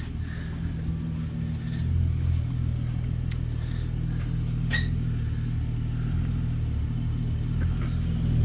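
An engine idling steadily: a low, even rumble, with a few faint light clicks about three and five seconds in.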